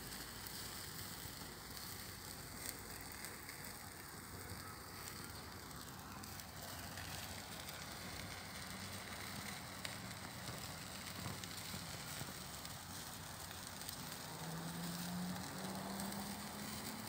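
Boerewors coil sizzling on a mesh grid over hot coals, with faint crackling from the fire.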